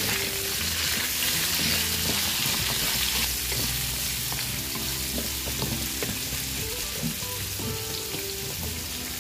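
Potato, carrot and bell pepper pieces sizzling in hot oil in a wok while a wooden spatula stirs and turns them. The sizzle is strongest in the first three seconds, then settles a little.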